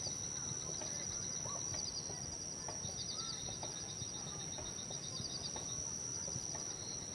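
Forest ambience: a steady, high insect drone runs throughout, with short pulsed insect trills recurring about once a second and a few faint bird chirps.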